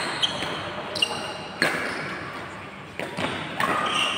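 Badminton rally: rackets striking the shuttlecock in several sharp cracks spaced irregularly, half a second to over a second apart, with a few short squeaks and people's voices in the background.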